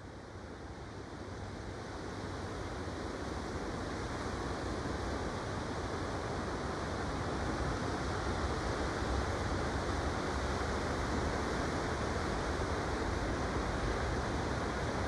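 Steady rush of small surf breaking on a sandy beach, growing louder over the first several seconds.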